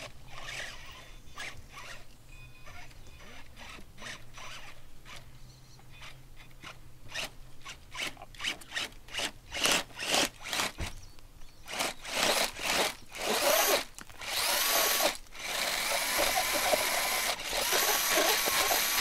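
Formula offroad buggy engine revving in short sharp bursts that come closer and closer together, then held at high revs for the last few seconds, its pitch wavering.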